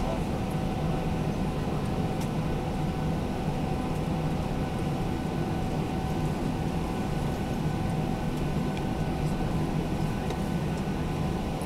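Steady airliner cabin noise: a low rumble and rush of air with faint steady high tones, unchanging in level.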